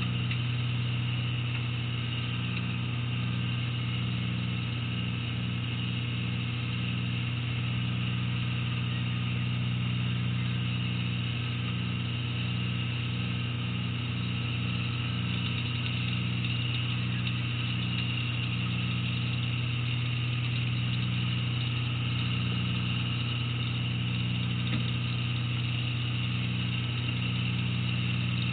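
Fishing boat's engine running steadily underway, a constant low drone with no change in pitch.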